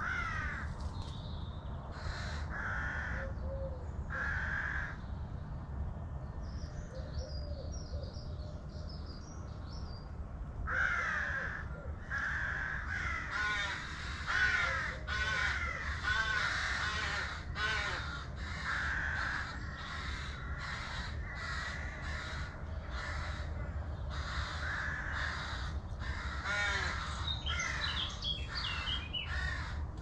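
Corvids calling off-screen: harsh calls, a few at first, then in quick runs from about ten seconds in. A small songbird twitters briefly in the middle, over a steady low background rumble.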